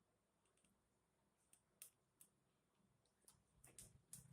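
Near silence with a few faint clicks and taps from handling a cardboard wheel while fitting it onto a small DC motor, more of them in the second half.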